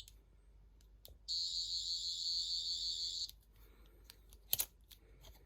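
Sonic screwdriver replica's electronic sound effect: a high, shrill whine for about two seconds, then a click about four and a half seconds in.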